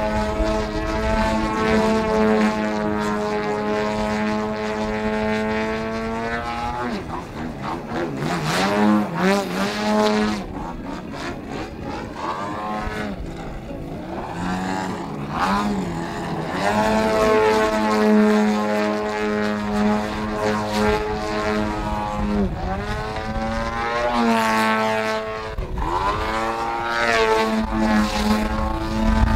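Pilot-RC Laser 103-inch aerobatic model plane's GP 123 petrol engine with MTW tuned pipes, running at a steady high pitch. For several seconds in the middle and again near the end, the pitch swings quickly up and down as the throttle is worked through aerobatic manoeuvres.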